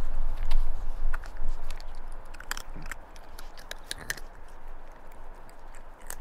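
Cats eating dry treats from a plastic slow-feeder bowl: scattered crunches and sharp clicks as the treats are bitten and knocked about, after a low rumble in the first second or so.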